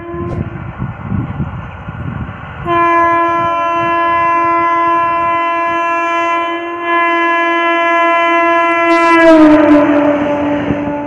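Indian Railways EMU train's horn sounding one long, steady blast as the train approaches. The horn drops in pitch as the train passes close by near the end, over the low rumble of the train.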